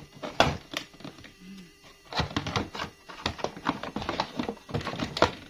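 Plastic toy parts and packaging being handled during unboxing: an irregular run of clicks, knocks and rustles.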